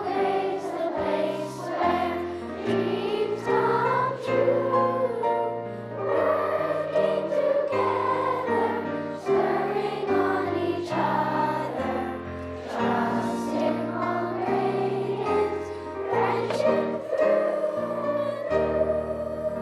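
A school song sung by a group of voices over an instrumental accompaniment with a steady, stepping bass line.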